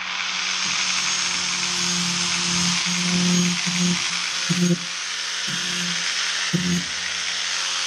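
A corded angle grinder is grinding down the end of a square steel tube: a steady grinding hiss over the motor's hum. The motor note swells and eases several times as the disc is pressed onto the metal and let up.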